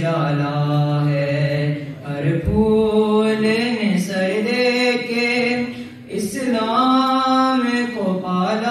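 A young male voice chanting an Urdu noha (Shia lament) unaccompanied, in long held notes that glide up and down. There are short breaks for breath about two seconds in and again about six seconds in.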